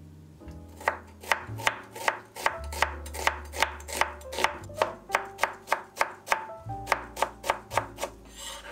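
A Global chef's knife chopping and mincing an onion on a bamboo cutting board, with sharp, regular strikes about three a second. A short scraping sound comes near the end.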